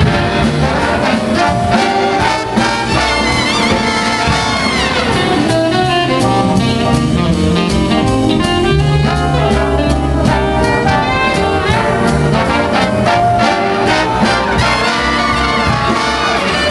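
Jazz big band playing a swing tune, with trumpets, trombones and saxophones sounding together over the rhythm section.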